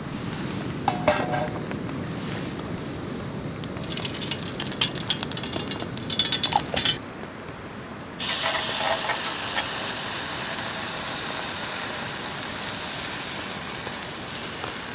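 Frying in a hot titanium pan on a gas canister stove: crackling sizzle, then a steady hiss of frying after a short drop about eight seconds in, as pancake batter goes into the pan.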